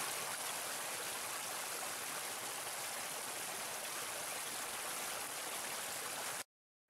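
Small rocky stream cascading over stones: a steady rush of water that cuts off abruptly near the end.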